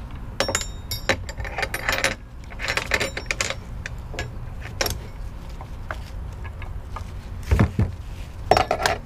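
A ratchet strap being fed through and worked around a white plastic tray on a boat's deck: scattered clicks and rattles of the strap's metal buckle, with two louder knocks near the end.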